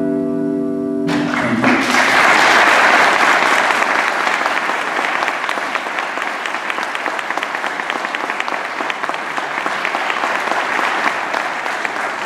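The final chord of two electric guitars rings and is cut off about a second in. Audience applause follows, loudest just after it starts and then slowly easing off.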